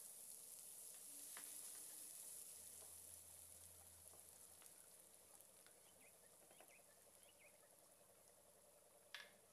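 Chopped red onion sizzling faintly in oil in a frying pan, the sizzle slowly fading, with a spatula stirring the onion partway through. A sharp click near the end.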